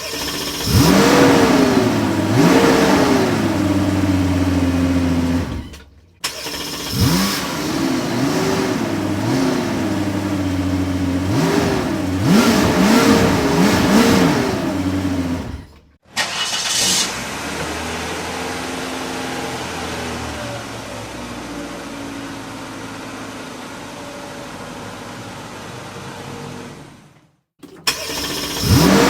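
Car engine revving in a string of separate clips split by short silent cuts: two revs, then a run of about five quick revs, then a steady idle for the second half. Near the end, after another short cut, revving starts again.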